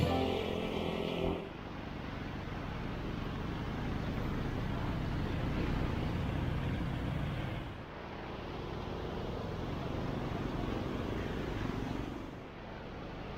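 Street traffic going by: motorcycle and jeepney engines running, a steady rumble. The sound drops abruptly three times, at cuts in the footage.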